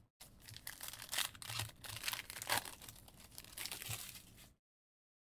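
Foil trading-card pack wrapper being torn open and crinkled, a dense run of crackles and rips that cuts off suddenly about four and a half seconds in.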